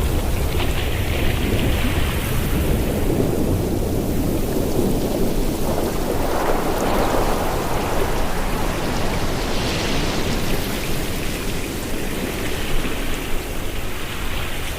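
Ocean surf: a steady rush of waves that swells and eases every few seconds, with a low rumble underneath.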